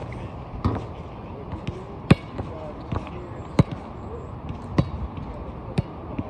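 A basketball bouncing on an outdoor court: about six separate sharp bounces at uneven intervals. The loudest come about two seconds in and past the middle.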